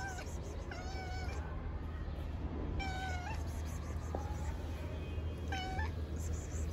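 A stray calico cat meowing: three short calls a couple of seconds apart, asking to be petted.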